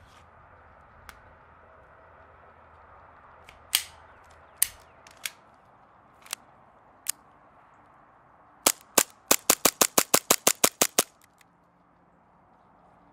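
Novritsch SSP5 gas-blowback airsoft pistol firing: several single shots a second or so apart, then a rapid string of about fifteen shots in a little over two seconds.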